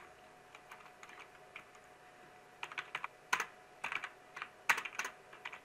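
Typing on a computer keyboard: a few faint, scattered key clicks at first, then a quicker run of louder keystrokes from about halfway through.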